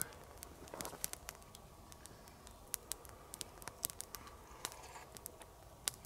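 Spoon tapping and scraping in a small metal camping pot while soup is eaten: faint, irregular clicks over quiet outdoor background.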